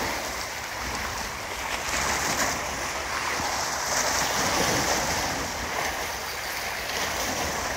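Steady wash of choppy sea water, with wind rumbling on the microphone.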